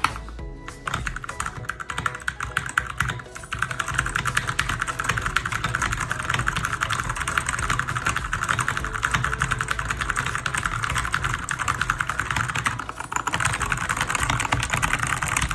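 Fast typing on a Keychron K4 V2 mechanical keyboard with brown switches: a rapid, even stream of key clicks. It starts with a few scattered keystrokes, turns into a steady run about three seconds in, and breaks off briefly near the end.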